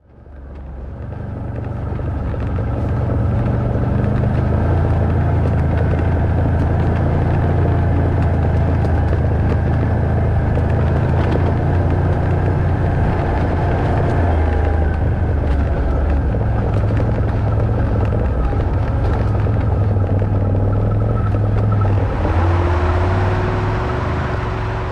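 Off-road vehicle's engine running steadily while it drives along a rough dirt track, with light knocks and rattles over the bumps. The engine note shifts over halfway through and again near the end.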